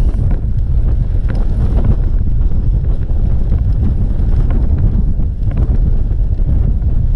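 Wind buffeting the microphone of a camera on a road bike riding at speed, a loud, steady low rumble.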